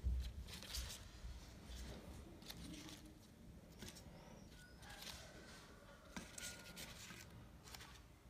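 Faint, scattered rustling with a few light taps as leaf-wrapped pork rolls are laid by hand into an air fryer's nonstick basket.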